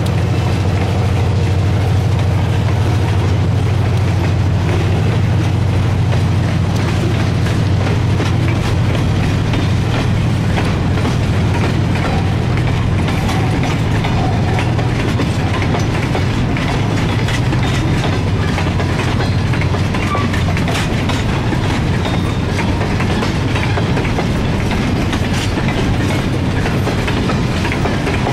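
Freight cars rolling slowly past, their wheels clicking over the rail joints in a continuous clickety-clack. A steady low hum sits under it and weakens after about the first ten seconds.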